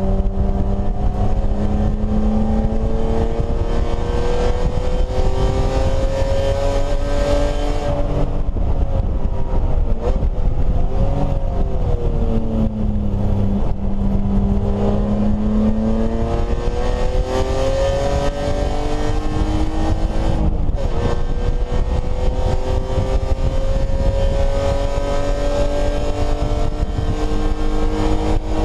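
BMW E30 race car's engine heard from inside the cockpit, pulling hard through the gears. It revs up for several seconds, lifts and drops in revs as it slows, then climbs again, with a quick upshift break about two-thirds of the way through before it climbs once more. Steady road and wind noise runs underneath.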